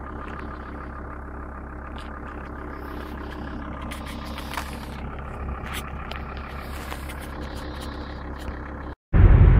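1998 Volvo V70 turbo diesel engine idling steadily, still cold just after a cold start at −15 °C, with scattered faint clicks over it. Near the end the sound cuts out for a moment and gives way to much louder noise.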